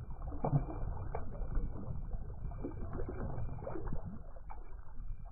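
Steady low wind rumble on the microphone with water lapping and a few small splashes, one from a released sheepshead kicking its tail at the surface near the start.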